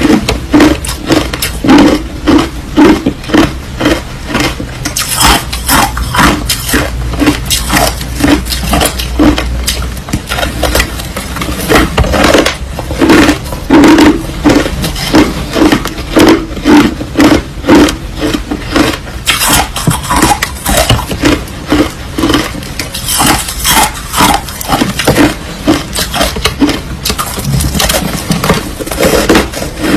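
Close-up chewing of crushed white ice: a steady run of loud crunches, about two a second.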